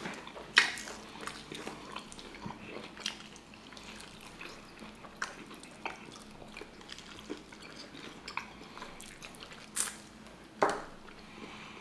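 Close-miked eating of sauced chicken wings: wet chewing, lip smacks and small mouth clicks. A few sharper smacks or bites stand out, one just after the start and two near the end.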